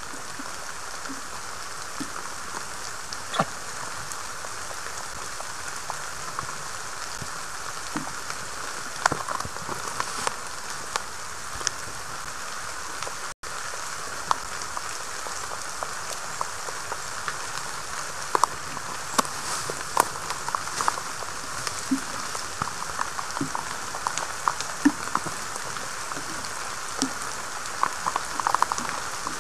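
Steady rain falling on a forest and the stick nest, an even hiss with scattered sharp drip-like ticks that come more often in the second half.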